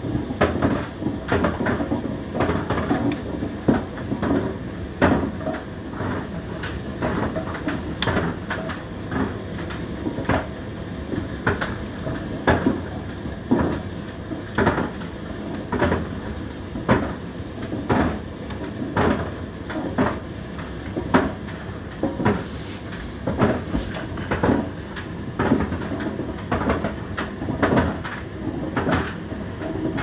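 Indesit IDC8T3 condenser tumble dryer running a drying cycle. A steady motor and fan hum sits under irregular knocks and thuds, about one a second, as the load tumbles in the turning drum.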